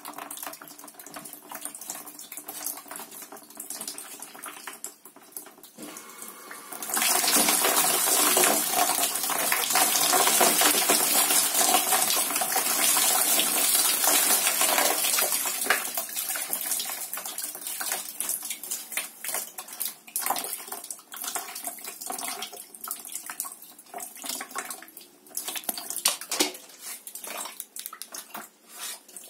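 Water pouring out of the open heating-element port of an electric water heater tank as it is flushed during cleaning. The flow turns into a loud rush about seven seconds in and eases off after about fifteen seconds into uneven splashing.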